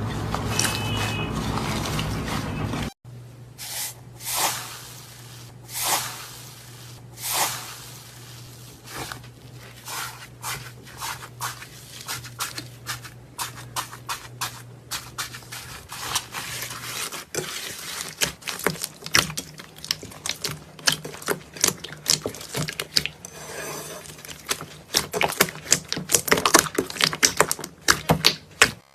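Crunchy slime being squeezed and pressed by hand, giving off dense runs of small crackles and pops that grow louder and thicker near the end. It is preceded by a steady hum that cuts off abruptly about three seconds in.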